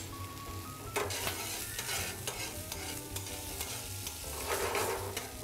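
Diced bacon pieces sizzling and crackling in hot olive oil in a black frying pan, while metal tongs stir and scrape them around the pan.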